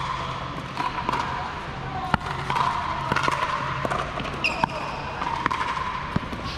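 Pickleball rally: paddles hitting a plastic pickleball, sharp knocks coming roughly a second apart, the strongest about two seconds in, over a steady background hum.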